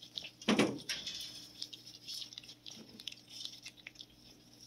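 A cat chewing pieces of raw chicken tenderloin (sasami), with many small clicking chews and bites. There is a single louder thump about half a second in.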